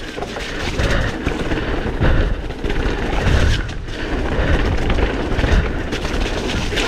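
Propain Rage 3 CF downhill mountain bike running fast down a rough dirt trail: a continuous heavy rumble of tyres and wind, with frequent knocks and rattles of the bike over bumps.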